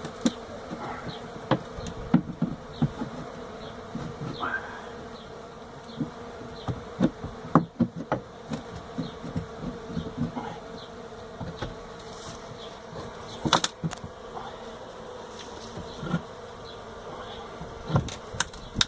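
Many Africanized honey bees buzzing in a steady hum, with scattered knocks and clicks throughout.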